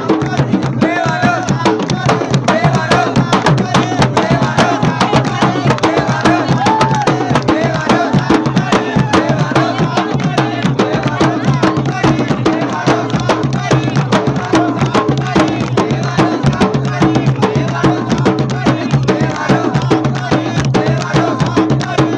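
Mugharmaan, the large Sheedi barrel drums, beaten by hand in a fast, driving rhythm. Men's voices sing and shout along over the drumming.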